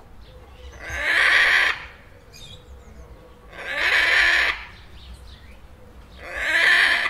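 A parrot screeching three times, each harsh, grating call lasting about a second, with softer chatter between the screeches.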